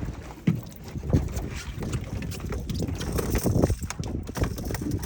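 Wind rumbling on the microphone with water lapping, broken by a few irregular low knocks.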